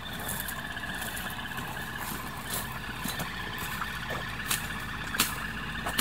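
Steady high-pitched insect drone, with a few sharp clicks and rustles from boots and hands in dry grass.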